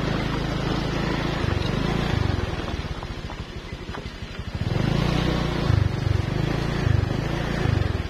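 Motorcycle engine working at low revs on a rough dirt track. The revs rise and fall, drop to a slow chugging for a couple of seconds in the middle, then pick up again about five seconds in.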